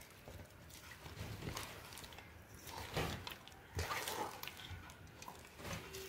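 Ladle stirring a thick, sticky herbal paste (lehyam) in a pan as honey is poured in little by little, making faint, irregular scrapes and squelches.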